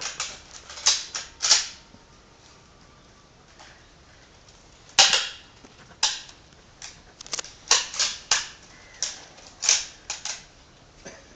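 Sharp metallic clicks and clacks of an INSAS rifle and its cleaning plug being worked by hand: a cluster of clicks at the start, a lull, a loud clack about five seconds in, then a run of clicks. This is the drill for clearing a cut cartridge case suspected to be stuck in the chamber.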